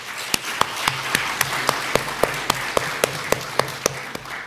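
Audience applauding, with one person's hands clapping close to the microphone in sharp, even claps at about four a second over the crowd; the applause dies away at the end.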